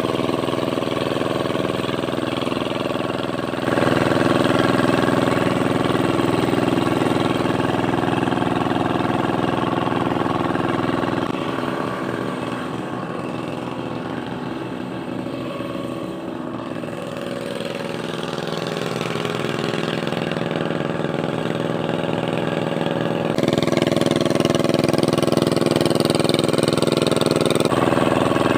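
Walk-behind hand tractor's engine running steadily as it tills a muddy rice paddy. It grows fainter for a stretch in the middle, then louder again near the end.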